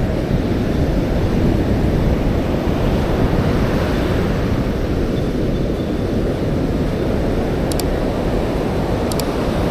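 Steady rush of ocean surf with wind buffeting the microphone. A couple of faint high ticks come near the end.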